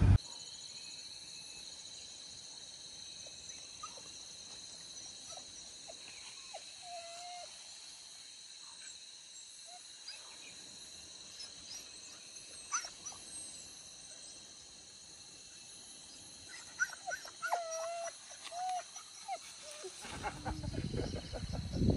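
Hunting dogs whining and yelping faintly: short pitched cries about six seconds in, then several more near the end, over a steady high-pitched drone. A low rumble comes in just before the end.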